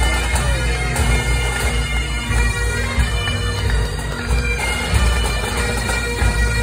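A Scottish pipe band playing on the march: bagpipes with their steady drones under the chanter melody, and snare and bass drums beneath.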